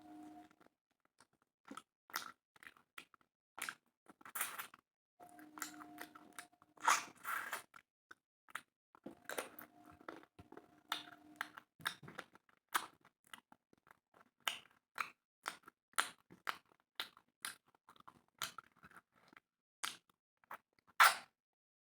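Close-up chewing and eating sounds of a person eating spicy chicken with rice: irregular wet mouth clicks, smacks and small crunches.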